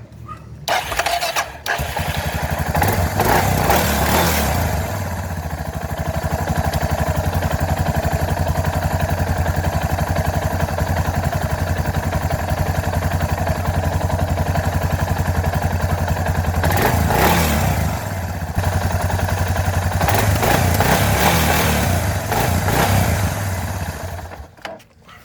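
Suzuki DR650's single-cylinder four-stroke engine started and run for about twenty seconds after a fresh oil change, idling with a few blips of the throttle before it is shut off near the end.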